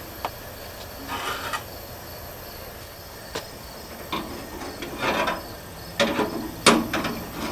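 Clinks and knocks of a metal stovetop waffle iron being handled, with a few short scraping rustles between them; the sharpest knock comes near the end.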